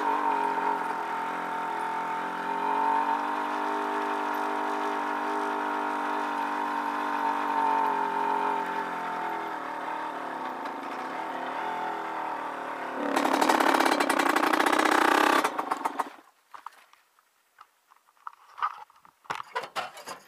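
Dirt bike engine running at a steady, slightly varying speed, then for about two seconds a louder, harsher burst as it revs up. The engine cuts off about sixteen seconds in, leaving only a few small knocks and rustles.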